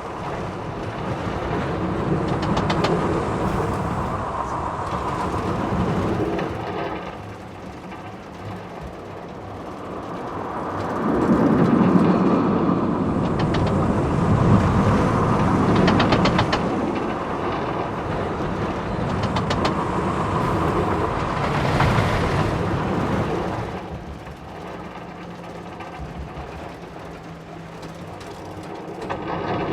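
Small kiddie roller coaster train rolling along its track, heard from on board: a running rumble of wheels on rail that swells louder and fades several times, with short runs of rapid clicking.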